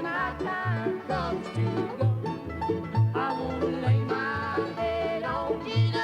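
Bluegrass-style country music: banjo and guitar over a bass alternating between two notes in a steady two-beat rhythm, with a sliding melody line above.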